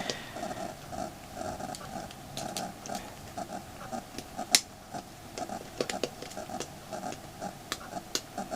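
Small scattered clicks and taps of a Phillips screwdriver working tiny screws out of a smartphone's plastic frame, with one sharper click about halfway through.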